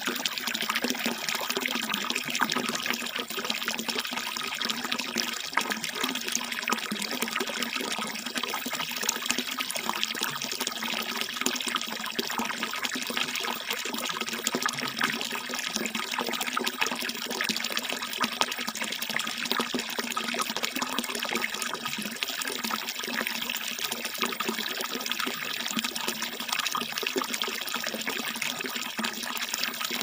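A steady stream of water pouring from a bamboo spout and splashing into a shallow pool.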